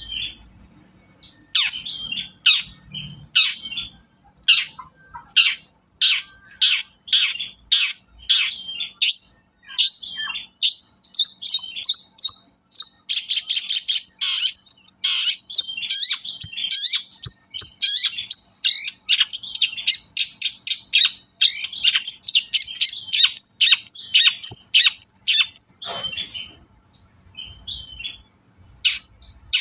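Long-tailed shrike (pentet/cendet) singing a fast, varied chatter of sharp, harsh notes, densest about halfway through, with a short pause near the end.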